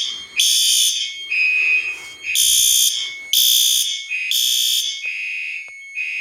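Fire alarm horns in alarm, sounding in loud, high-pitched blasts about once a second, some blasts in a different, purer tone, with a thin steady high tone running between them. The system stays in alarm until it is reset.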